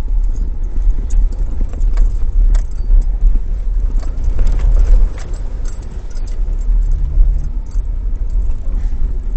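Jeep driving slowly over a rough, muddy dirt trail: a steady low rumble with frequent knocks and rattles from the vehicle jolting over the ground.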